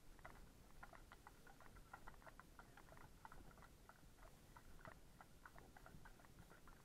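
Hooves of several horses walking on a tarmac lane, a faint, irregular run of sharp clip-clop clicks.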